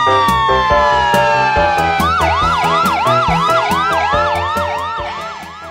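Emergency vehicle sirens over background music with a steady beat: a slow wailing siren, joined about two seconds in by a fast yelp siren that sweeps up about three times a second. The sound fades near the end.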